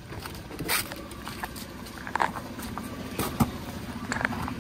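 Toyota 4Runner's engine running at low revs as the truck crawls through a rocky rut, with a handful of sharp crunches and knocks from the trail, the loudest about three and a half seconds in.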